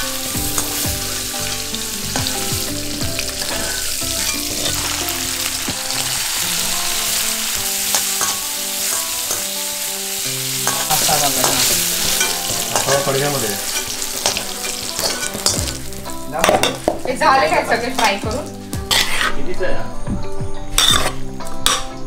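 Paneer cubes sizzling as they fry in hot oil in an iron kadhai, stirred and lifted with a slotted metal spoon. From about 16 seconds in, a quick run of clinks and scrapes of the metal spoon against steel pots takes over and is louder than the frying.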